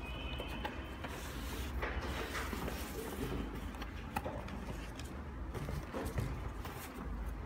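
Hands handling a pair of Adidas NMD knit sneakers and a cardboard shoebox: soft rustling with a few light knocks, over a steady low hum.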